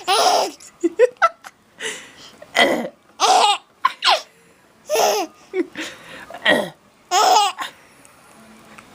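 A four-month-old baby laughing hard in a string of short bursts, about one a second. Some bursts are high and squealing, others breathy.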